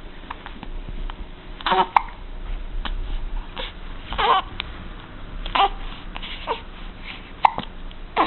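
Five-week-old baby hiccuping repeatedly, a short hic every one to two seconds.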